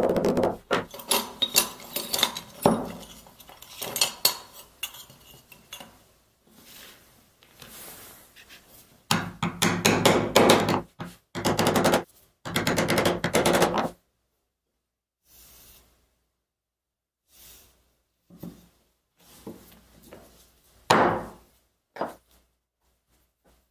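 A mallet striking a four-prong leather stitching chisel, punching stitch holes through layered leather: rapid metallic clinks in two busy runs, the second about nine seconds in. After that, only scattered light knocks and handling sounds.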